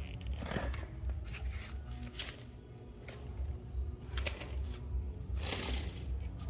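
Soft handling noises: several brief scrapes and rustles over a steady low hum.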